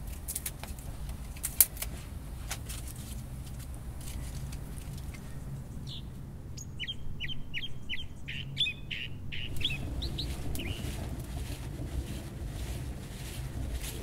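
Small wood fire crackling with sharp pops, one loud pop a second and a half in. About six seconds in, a small bird sings a quick run of about ten short down-slurred chirps lasting some three seconds.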